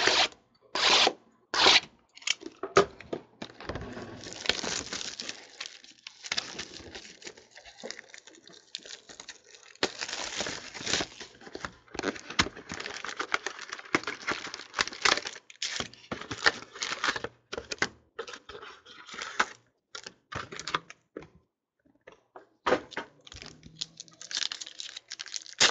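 Panini Prizm trading-card boxes and foil card packs being torn open by hand: a run of ripping and crinkling, with three loud rips in the first two seconds and a short pause a few seconds before the end.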